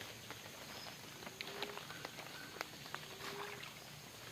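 Quiet outdoor ambience at a flooded forest edge: a steady soft hiss with scattered small ticks and clicks and a few brief steady high notes.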